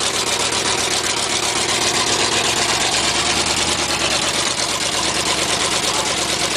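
Pickup truck engine running steadily while the truck pulls on a tow strap hooked to an overturned mud truck in deep mud.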